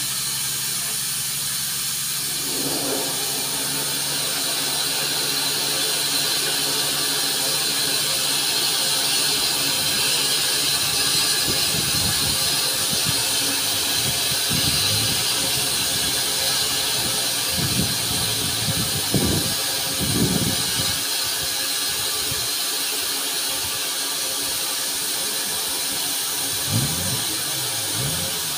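Andrew Barclay steam locomotive No. 1219 standing with steam hissing steadily, swelling a little louder midway and easing off again.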